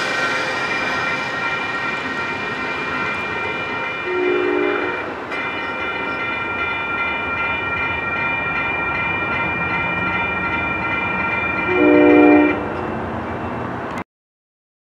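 Railroad grade crossing bell ringing steadily as the train moves off, with a train horn sounding twice in the distance: a short blast about four seconds in and a louder one about twelve seconds in. The sound cuts off abruptly near the end.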